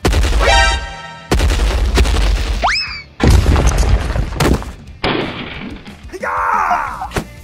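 Background music overlaid with cartoon sound effects: two heavy booms about two seconds apart, a quick rising whistle just before the second, and a falling, wavering tone near the end.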